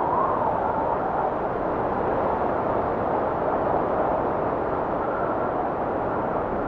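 Wind blowing steadily, a continuous rushing noise with a faint wavering whistle rising and falling in pitch.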